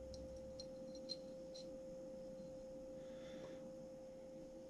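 A few faint small clicks and taps as screws are handled and pushed into a camera cage, the sharpest about a second in, over a steady faint hum tone.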